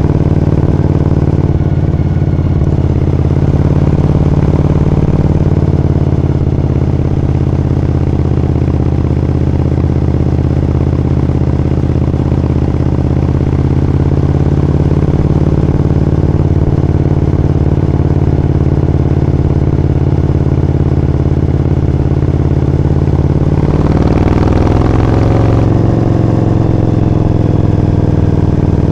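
Suzuki TL1000S 90-degree V-twin running through a Striker carbon aftermarket exhaust at a steady cruise. Its pitch falls over the last few seconds as the throttle comes off.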